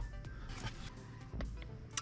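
Faint music, with some thin held notes.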